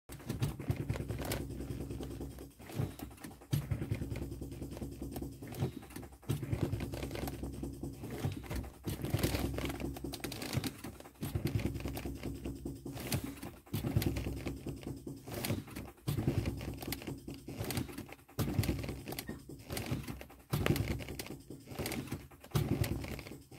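ABS valve-block solenoids on a Land Rover Discovery, cycled by a home-built modulator, buzzing and clicking rapidly in repeated bursts of a couple of seconds with short breaks between. This is the solenoid cycling used to bleed air and old fluid out of the ABS unit while the brake pedal is pumped.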